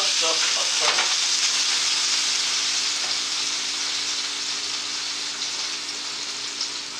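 Hot food sizzling steadily on a baking tray just out of the oven, the hiss slowly fading. A light knock about a second in.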